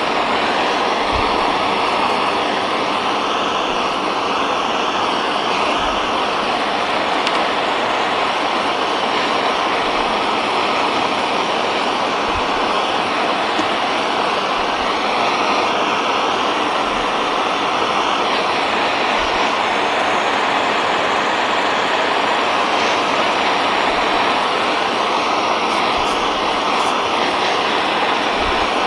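Hand-held gas torch burning with a steady rushing hiss as its blue flame heats a brass plate to melt tinning fluid and solder onto it.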